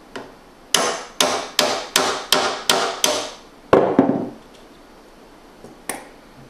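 Hammer tapping a metal punch to drive the bamboo retaining peg (mekugi) out of a katana's handle: seven sharp, briefly ringing taps at about three a second. They are followed by two duller, heavier knocks and, near the end, a single light click.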